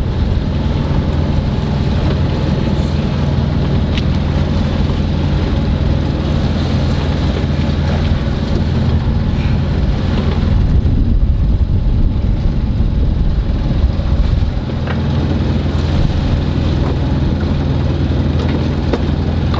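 A sailboat's engine running steadily, heard as a low, even hum inside the cabin, with a rushing noise over it.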